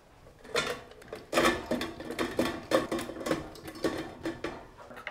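Stainless steel food mill being cranked, its blade scraping over the perforated disc as boiled potatoes are pressed through, in a quick uneven series of metallic strokes that starts about half a second in.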